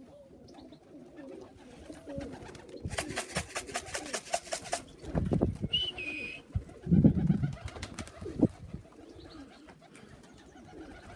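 Domestic pigeons cooing, with a rapid clatter about three seconds in and a few heavy thumps after it.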